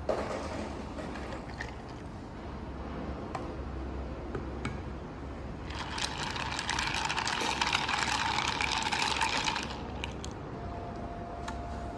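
HiBREW H7B espresso machine running an extraction: a steady low pump hum with liquid sounds. A loud hiss starts about six seconds in and lasts about four seconds.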